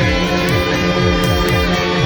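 Instrumental music: guitars and keyboards over bass and programmed drums, with a steady beat.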